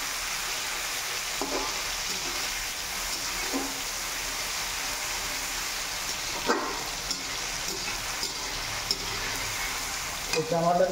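Tomato frying and sizzling in hot oil in a pan, a steady sizzle with a few brief stirring scrapes.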